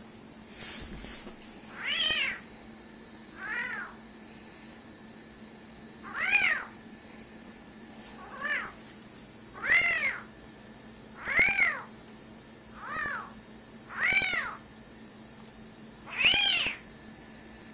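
Small kitten meowing over and over: about ten high, thin cries, each rising and then falling in pitch, one every second or two.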